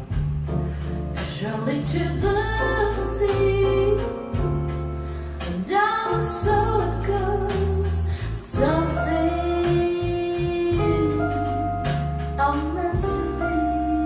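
A song with a singer over a strong bass line, played back from CD through Boston Acoustics M350 tower loudspeakers and heard in the room.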